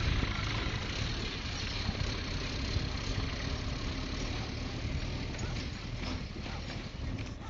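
A motor vehicle's engine running steadily while travelling, with a constant noisy rumble.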